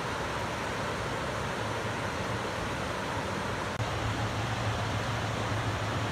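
Steady rush of whitewater tumbling over the rock rapids below a low dam. A low rumble grows a little stronger about four seconds in.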